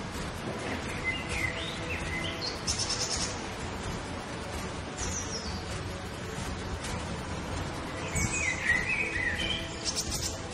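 Small songbirds chirping, with short twitters and trills repeating every few seconds over steady outdoor background noise.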